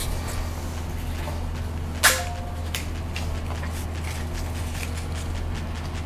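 Steady low hum of shop room tone, with one sharp click about two seconds in and a few lighter clicks and taps after it, as a card and small items are handled at a checkout counter.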